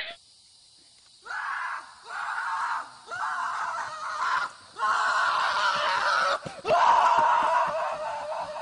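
A run of about six harsh screams, each half a second to a second long with short breaks between, starting about a second in.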